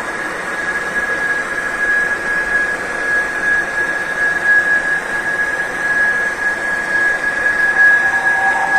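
Steady static hiss with a thin, high whine held on one pitch. About a second before the end, a lower alert tone comes in underneath.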